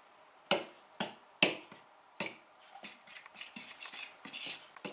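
Fork clinking and scraping against a stainless steel bowl while beating eggs into flour: a few sharp separate clicks, then a quicker run of clicks and scrapes over the last couple of seconds.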